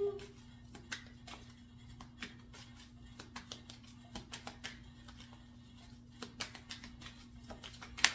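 Tarot cards being handled: scattered light clicks and taps of cards, a few a second, over a low steady hum, with one sharper snap just before the end.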